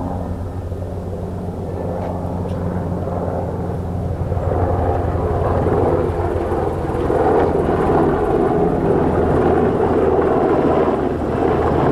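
Helicopter engine and rotor running steadily with a low, rhythmic pulse; it grows louder about four seconds in.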